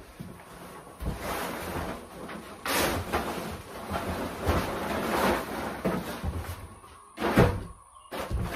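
Plastic tarp crinkling and rustling as it is unfolded and spread over a floor, with a louder sharp flap about seven seconds in.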